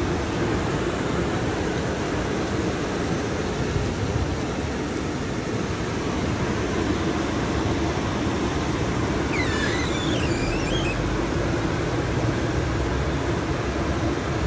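Steady noise of rain and wet-road tyre noise heard inside a moving car's cabin, with a low engine hum underneath.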